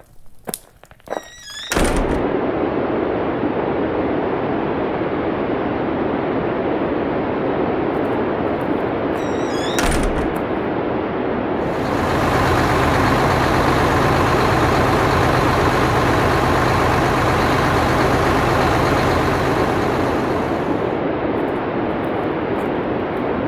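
A few footstep-like clicks and a thunk, then a sudden loud, steady rushing noise. About halfway through, a low steady hum joins it, with a single click just before.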